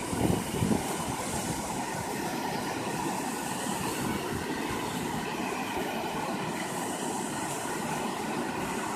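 Steady rushing of a waterfall, an unbroken wash of noise with no change in level.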